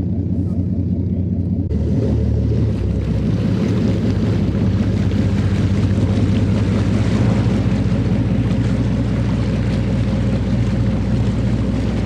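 Boat engine running steadily. A little under two seconds in, the sound changes abruptly and a louder rushing hiss joins the engine hum.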